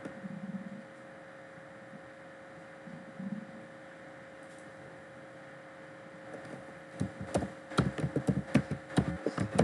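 Computer keyboard being typed on: a quick, irregular run of key clicks starting about seven seconds in, over a steady electrical hum.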